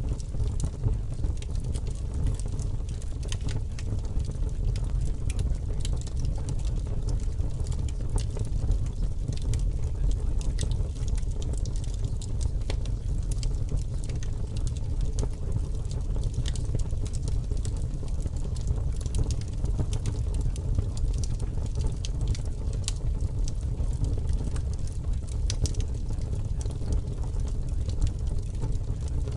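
Continuous low rumbling noise with many faint, irregular crackles and ticks scattered through it, holding steady throughout. This is the kind of ambient masking track that subliminal recordings run over their hidden affirmations.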